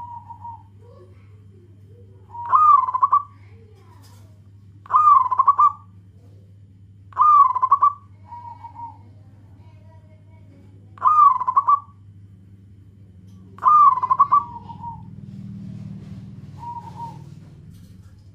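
Zebra dove (local perkutut) cooing: five loud, rolling coo phrases a few seconds apart, with softer short notes in between.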